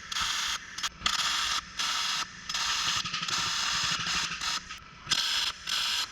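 MIG welder arc crackling and hissing in a series of short bursts with brief pauses between them, with a couple of longer runs, as a sheet-metal extension is stitch-welded onto a car body panel.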